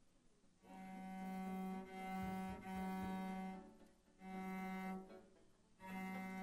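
Low bowed-string note, like a cello, held at one pitch and sounded several times for about a second each, with short breaks between.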